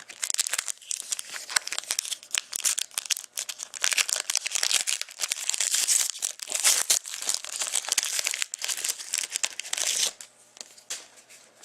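Trading card pack wrapper being torn open and crinkled, a dense run of crackling that stops about ten seconds in, with a few light crinkles after.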